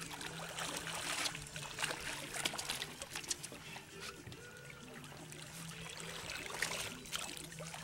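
Water splashing and sloshing in bursts, strongest a second or two in and again near the end, over a steady low hum like an idling boat engine.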